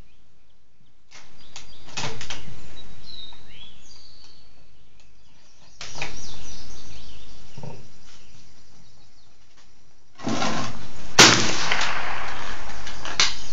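Several gunshots a few seconds apart, the sharpest about eleven seconds in.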